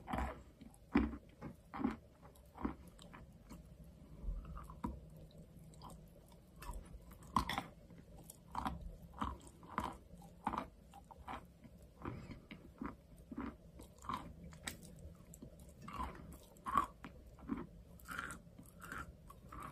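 Wet chalk being bitten and chewed close to the microphone: irregular crisp crunches, about one or two a second.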